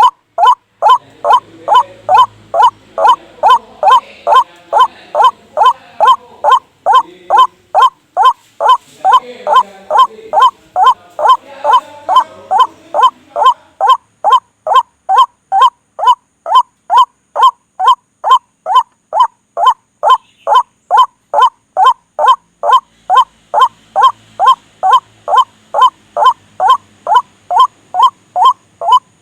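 White-breasted waterhen (ruak-ruak) call played as a trapping lure: one harsh, honking note repeated evenly and without a break, about two to three times a second.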